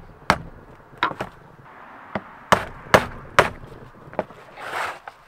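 Claw hammer striking the handle of a flathead screwdriver, driving its blade around the edge of the pressed-on metal boot housing of a Porsche 944 Turbo CV joint to knock it off the bearing: a series of sharp knocks, about five loud ones and two lighter ones at an uneven pace, then a brief rustle near the end.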